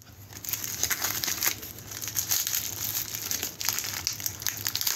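White tissue paper packing crinkling and rustling as it is pulled open by hand, an irregular run of quick crackles.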